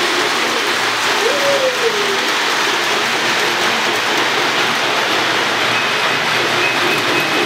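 Steady rushing hiss and rumble of Lionel toy trains running on the layout's track, with a brief gliding tone about a second in.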